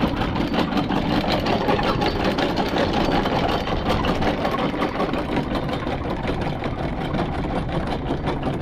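Boat engine running steadily as the boat gets under way.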